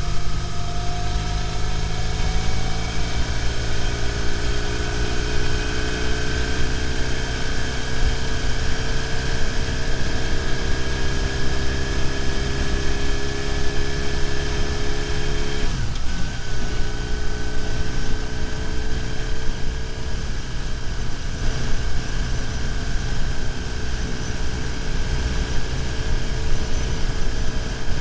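BMW R1150GS motorcycle's boxer-twin engine running at road speed over a steady rush of wind and road noise. Its pitch rises slowly, dips briefly about sixteen seconds in as the throttle changes, then holds steady.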